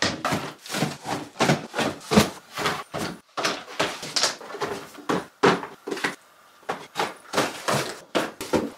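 Quick series of knocks and thumps as cardboard boxes and packages are picked up, set down and stacked, with a short lull about six seconds in.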